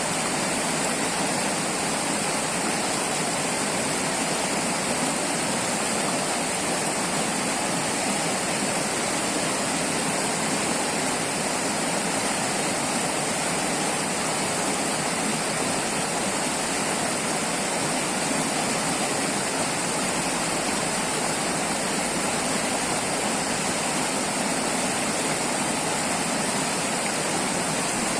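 River water flowing and rushing, a steady even hiss with no change in level.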